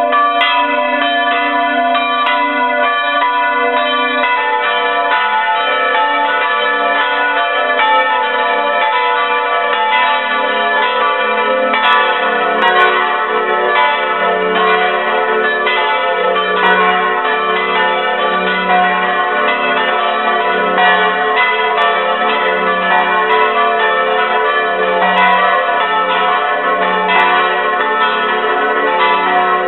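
Church bells swinging and ringing, heard close up in the belfry, with their clappers striking over and over. About twelve seconds in, a deeper tone joins the peal.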